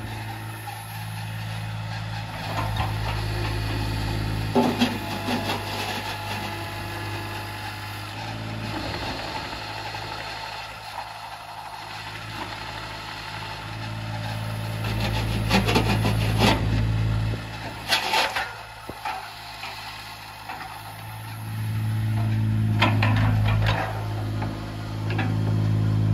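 Kubota U25-3 mini excavator's three-cylinder Kubota diesel engine running, its note rising and falling several times as the boom and arm are worked, with scattered sharp clanks.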